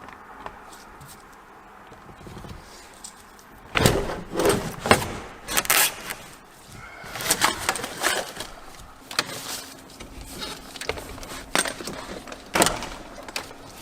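Irregular clatter, clicks and knocks of hand-work on parts and tools, starting about four seconds in and coming in uneven groups.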